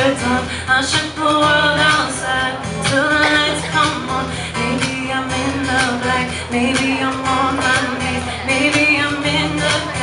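A woman singing a pop melody with a steel-string acoustic guitar accompanying her, played live.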